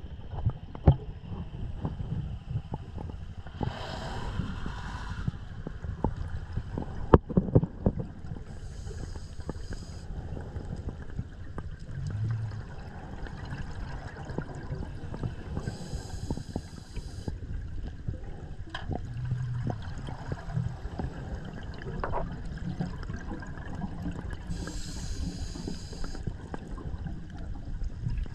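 Underwater, a scuba diver's exhaled bubbles from an open-circuit regulator: four bubbly bursts, one every six to nine seconds, over a steady low rumble of water against the camera housing. A sharp knock about seven seconds in.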